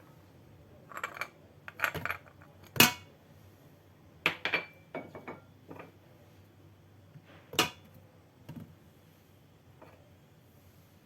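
Dishes and kitchen utensils clinking and knocking together in a scattered series of short hits, the sharpest about three seconds in and another about seven and a half seconds in.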